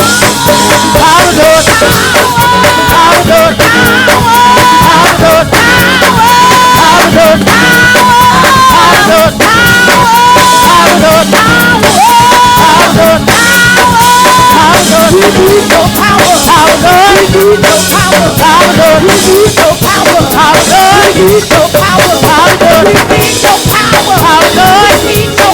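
Live gospel praise band playing loud and without a break: a drum kit keeping a steady beat with sung melody lines over it.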